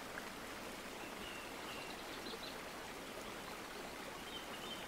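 Low, steady hiss of the recording's background noise, with a few faint, short high chirps.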